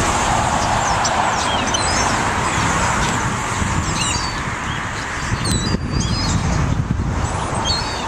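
A mixed flock of birds calling: many short, high chirps and sliding whistles scattered throughout, over a steady low background rumble.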